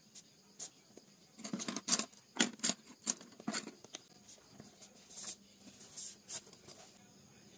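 Wooden pencils clicking and knocking against each other and rubbing against a canvas pencil roll as they are handled and slid into its elastic loops: a quick run of clicks about one and a half seconds in, then a few scattered ones.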